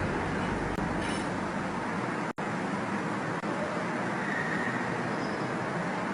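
Steady outdoor rumble and hiss with no clear tone, cut off for an instant about two seconds in.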